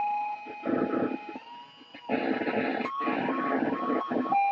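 Electric guitar played through effects pedals, giving a harsh, noisy drone with held high tones. The tones step up in pitch, and the sound cuts out briefly a few times.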